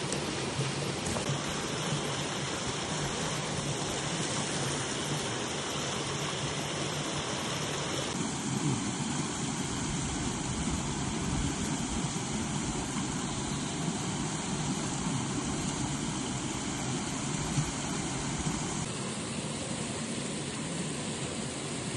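Steady rushing of river water, whose tone shifts abruptly about a second in, about eight seconds in and again near the end.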